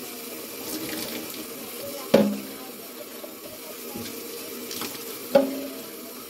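Kitchen faucet running water into the sink while a wire refrigerator shelf is washed under it. Two sharp knocks with a brief ring come about three seconds apart, with a few lighter clicks between them.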